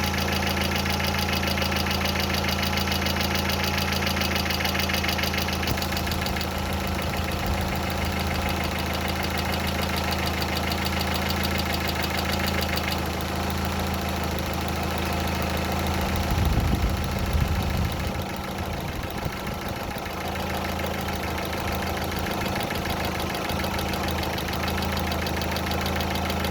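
Car engine idling with fast, even tapping from its hydraulic valve lifters, which knock because water got into the engine oil. The tapping is strongest in the first half and weakens about halfway, with a brief louder low rumble about two-thirds of the way in.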